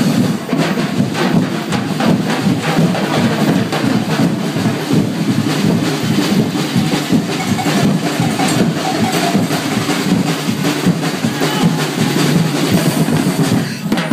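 Street festival drum band of bass drums, snare drums and metal barrel drums, beating out a loud, fast, unbroken rhythm for the parade dancers.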